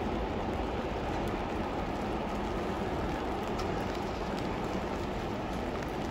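Steady rain hiss mixed with the low rumble of a train moving away.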